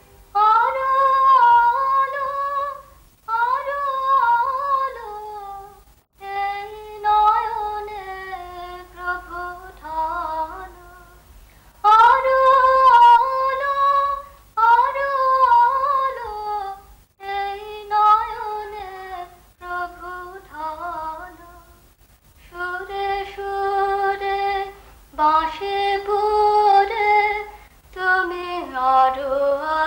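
A woman singing a slow melody without accompaniment, in phrases of two to three seconds with short breaths between them.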